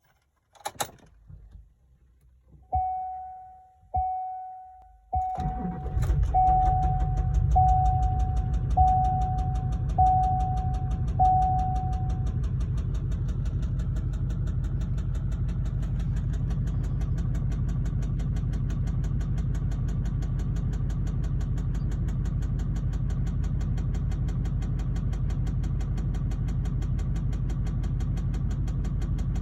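A vehicle warning chime dings about once a second while an LBZ Duramax 6.6-litre V8 turbodiesel cranks and starts about five seconds in. The engine then idles steadily with an even, rhythmic knock from a spun connecting-rod bearing, damage put down to gasoline in the diesel.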